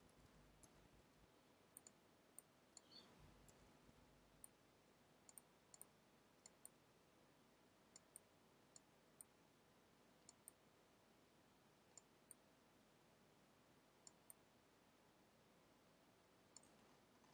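Faint clicks of a computer mouse, about twenty at irregular intervals, some in quick pairs, as brush strokes are made in an image editor.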